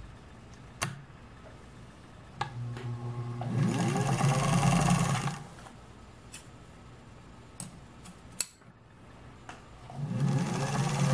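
1948 Singer 201-2 sewing machine motor spinning up and driving the bobbin winder, winding thread onto the bobbin. It runs twice: a whir that rises in pitch as it speeds up, first about three and a half seconds in for two seconds, then again near the end. A few sharp clicks come in between as the winder is handled.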